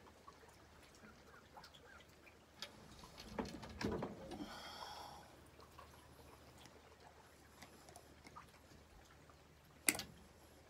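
Faint handling noise near the microphone: scattered light ticks, a rustling patch of cloth and movement about three to five seconds in, and one sharp click near the end.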